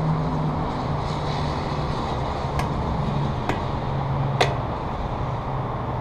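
Three sharp taps about a second apart, the last the loudest: a hammer striking an Allen wrench held as a punch to drive out a pad retaining pin on a Brembo brake caliper. A steady low hum runs underneath.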